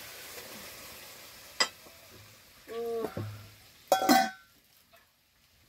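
Chicken curry sizzling in a karai, the hiss dying away as the pan comes off the wood fire. Then a sharp click, a short pitched sound and a loud metal clank of cookware that rings briefly.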